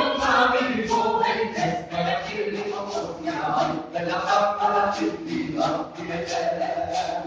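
Voices singing a Spanish folk song in a chant-like style with long held notes, over light taps about twice a second.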